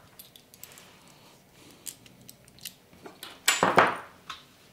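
Small sheet-metal light-fixture parts clinking and rattling as they are handled, with light scattered clicks and a louder double clank about three and a half seconds in.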